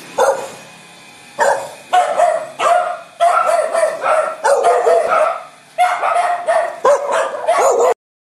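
Dogs barking, a rapid, uneven string of loud barks, some overlapping, that cuts off suddenly near the end.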